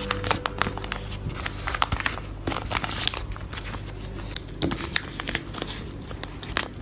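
Plastic packaging crinkling and rustling as it is handled, with a dense run of small crackles.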